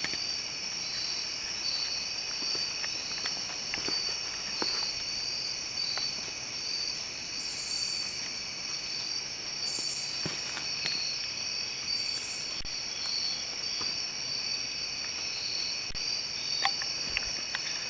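A night chorus of crickets trilling steadily in high, slightly pulsing tones. About halfway through come three short, high hissing bursts, each a second or less, and these are the loudest sounds.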